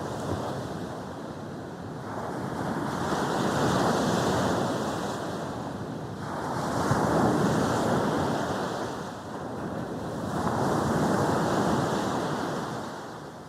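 Sea waves breaking and washing up a beach. The surf swells and falls away about every three to four seconds, three times.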